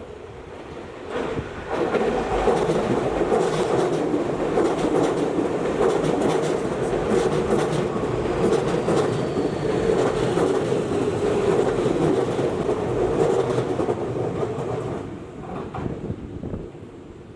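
Tokyu Toyoko Line electric train passing at a level crossing, its wheels clacking over the rail joints. It builds up about two seconds in, holds loud, and fades away near the end.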